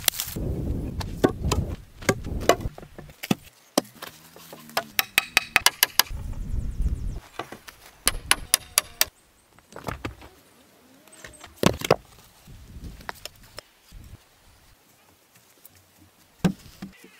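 Hand-building work on a log shelter: rustling and scraping in dry soil, and many sharp clicks and knocks, some in quick runs, as peeled wooden poles are handled and set.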